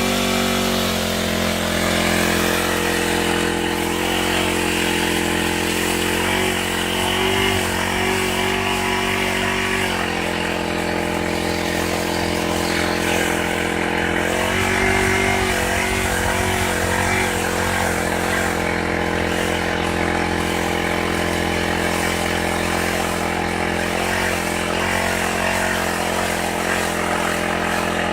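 Small petrol engine of a multi-purpose brush cutter with a pole-saw attachment, running steadily at high speed. Its pitch wavers slightly a few times.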